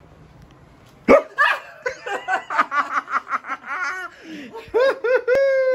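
A woman caught by a jump scare: a sudden scream about a second in, breaking into quick bursts of laughter and squeals, then a long high cry near the end.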